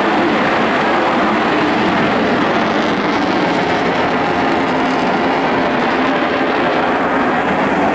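Eurofighter Typhoon's twin Eurojet EJ200 turbofans, a loud, steady jet noise as the fighter flies its display.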